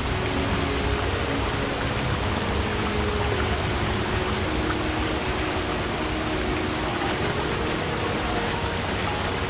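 Stream water flowing in a steady, even rush, with faint low tones coming and going underneath.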